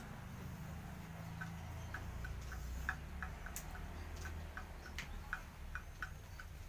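A run of light ticks, about three a second and not quite even, starting a little over a second in, over a low steady rumble.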